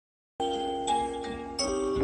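Hip-hop beat starting about a third of a second in: a melody of held, pitched notes that changes every half second or so.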